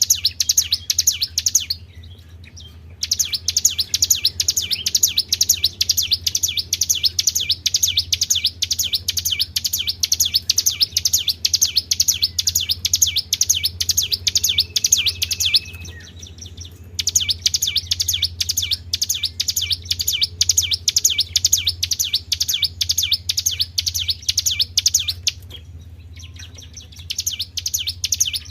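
A songbird singing long phrases of rapid, repeated high-pitched notes (a 'treble' song). There are brief pauses about 2 s in, about 16 s in and near the end. A steady low hum runs underneath.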